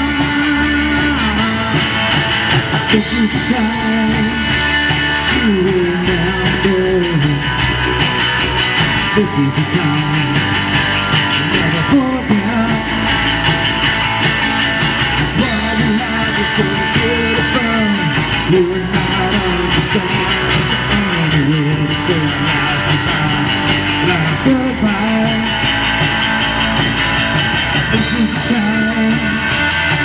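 Live rock band playing: electric guitars, bass guitar and drum kit, with a melody line that slides up and down in pitch over the band.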